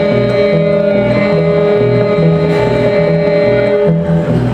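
Fiddle bowing long held notes over a band's steady backing, with a low beat about twice a second.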